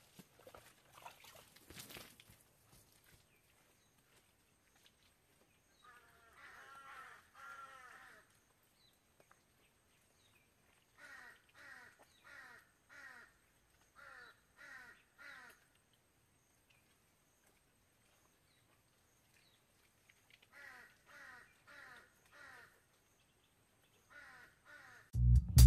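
A bird calling in several runs of short, harsh calls, each falling in pitch and about half a second apart, with a few faint knocks near the start.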